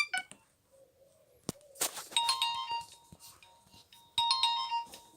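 Nokia 1200 mobile phone playing a short electronic chime tone through its speaker, the same short phrase repeating about every two seconds, twice here. A few quick blips open the stretch, and a click and a brief rustle come just before the first chime.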